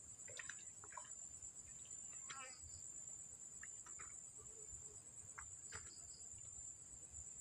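Steady, high-pitched trilling of insects, like crickets, with a few short chirps and calls dotted through it.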